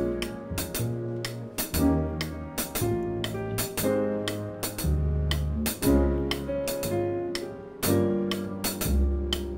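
Small jazz combo playing: piano, double bass and drum kit. A cymbal keeps time at about three strikes a second over the piano and low bass notes.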